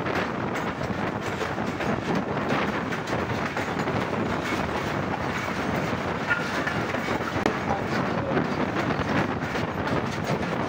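Passenger coaches of a passing train rolling by close on the adjacent track: a steady rumble with the wheels clattering over the rail joints.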